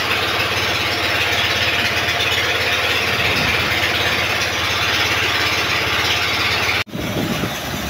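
A boat's engine running steadily, with a sudden brief dropout near the end.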